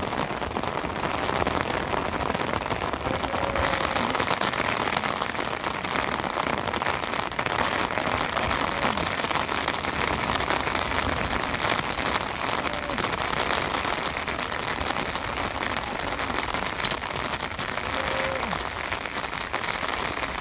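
Steady rain falling on canvas tents, plastic tarps and gravel: an even, dense hiss of many small drops with no let-up.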